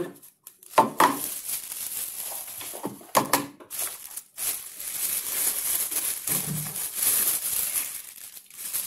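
Clear plastic packaging bag crinkling as a small desktop speaker is pulled out of it and handled. A few short knocks are heard as the speaker is moved and set down.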